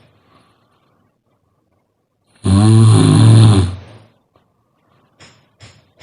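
A sleeping person snoring: one loud, low rasping snore about two and a half seconds in, lasting about a second and a half, then a few faint short puffs near the end as the next breath begins.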